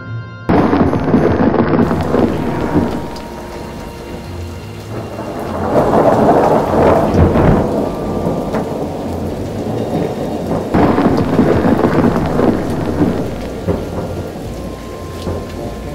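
Rainstorm sound effect: heavy, steady rain that starts abruptly about half a second in, with thunder rolling through it in two long swells, about six and eleven seconds in.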